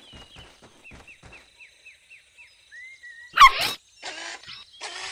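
Cartoon rainforest ambience: a string of faint, quick falling chirps, then one loud short bark from a cartoon puppy about three and a half seconds in, followed by repeated croaks a few times a second.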